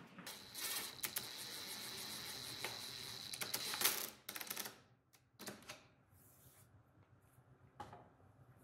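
Cordless impact driver spinning the frame clamp's threaded rod to draw the mitred corners tight, running with a high whine and rapid rattle for about four seconds, then stopping abruptly. A few light clicks and knocks of the clamp follow.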